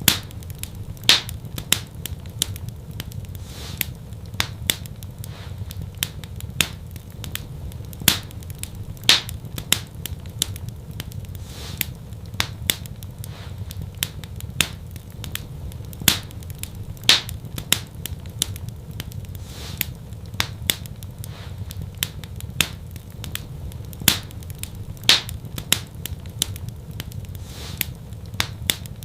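Fire in a fireplace crackling: frequent sharp pops and snaps over a low steady rumble. The loudest pops come back about every eight seconds.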